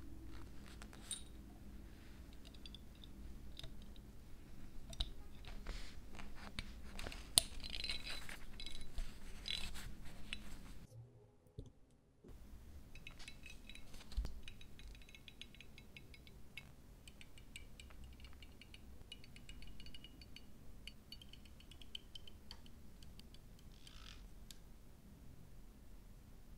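Small brass blowtorch parts clicking and clinking as they are fitted together by hand, then an adjustable wrench with tape-wrapped jaws tightening a brass fitting on the torch's tube, giving a run of small, fast clicks. A brief silent break comes near the middle.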